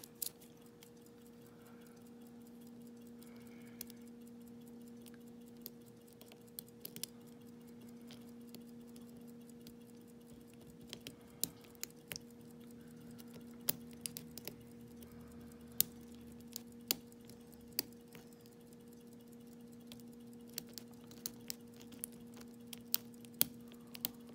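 Faint, irregular small metallic clicks and ticks of a lock pick and tension wrench working the pins of a pin-tumbler challenge lock cylinder, over a steady low electrical hum.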